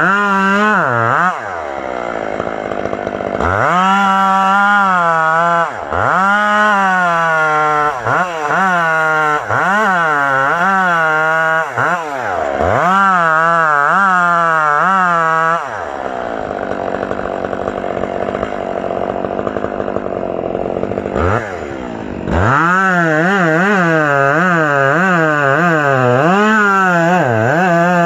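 Chainsaw running and cutting wood, its engine pitch repeatedly dipping and recovering under load, with two quieter stretches between cuts.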